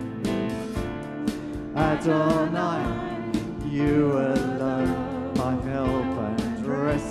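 Live worship band playing a song: acoustic guitar, bass guitar and drum kit keep a steady beat, and singing voices come in about two seconds in.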